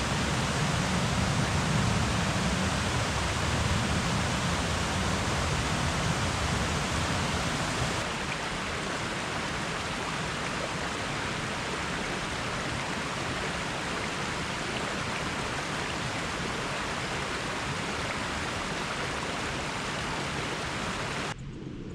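Waterfall rushing: a steady hiss of falling water. It drops a little in level about eight seconds in and cuts off abruptly just before the end.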